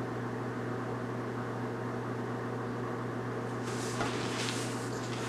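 Room tone: a steady low hum with faint hiss. Near the end, faint rustling and a light knock as a person shifts on an exercise mat.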